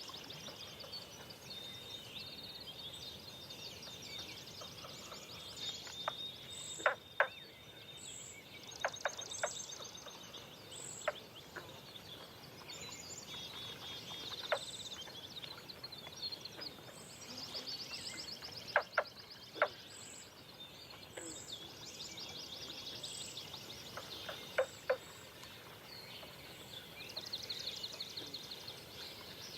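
Dawn chorus of several songbirds singing overlapping high trills and chirps, with short sharp clicking notes now and then, some in quick pairs, which are the loudest sounds.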